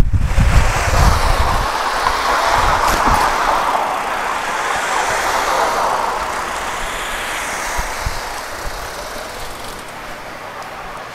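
Road and traffic noise heard from a handlebar camera on a moving road bike: a broad, steady rush of tyres and passing cars that swells early and fades gradually through the second half. Low wind buffets the microphone in the first second or so.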